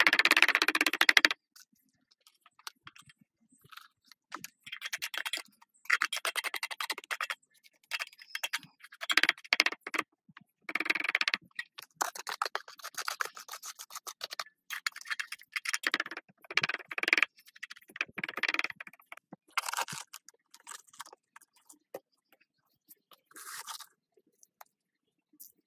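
Steel trowel scraping and spreading wet cement mortar, in short gritty strokes with pauses between them; the first stroke, lasting about a second, is the loudest.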